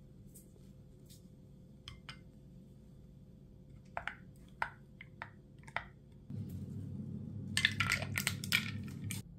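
Stirrer clinking against a drinking glass of coffee five times. About six seconds in, a small handheld frother starts whirring for about three seconds and rattles against the glass, frothing the coffee, then stops abruptly.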